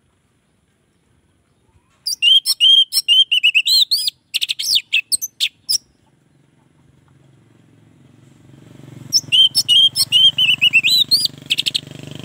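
Orange-headed thrush singing two rapid phrases of loud, quick rising and falling whistles and trills, separated by a few seconds' pause. In the second half the low hum of a passing motor vehicle's engine builds up beneath the song.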